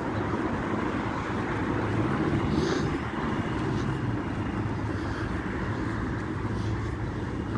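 Steady city road traffic: a continuous low rumble of passing motor vehicles, swelling a little two to three seconds in.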